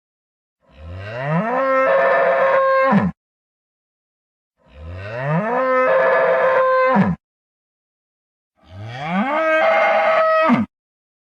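Parasaurolophus sound effect: a synthesized dinosaur call that rises in pitch, holds a steady tone, then drops sharply at the end. It plays three times, about four seconds apart, with complete silence between calls.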